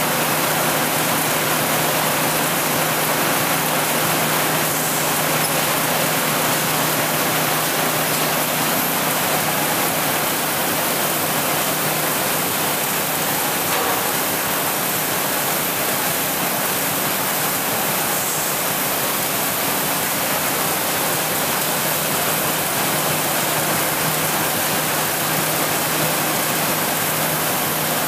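ECH Will paper sheeter running: a steady rush of noise from the paper web travelling over the rollers at speed, with a low steady machine hum underneath.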